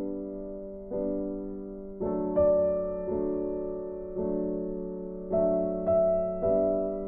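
Background music: slow, gentle piano or electric piano, chords struck about once a second and left to fade.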